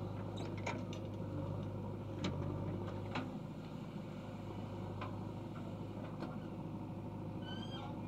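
Backhoe loader's diesel engine running steadily under load as the rear bucket swings, dumps mud and digs, with scattered sharp knocks from the bucket and falling clods. A brief high animal call rises and falls near the end.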